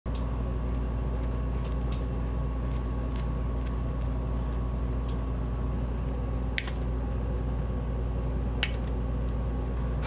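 Steady low machine hum, with a few small clicks of things being handled at the workbench and two sharper clicks about six and a half and eight and a half seconds in.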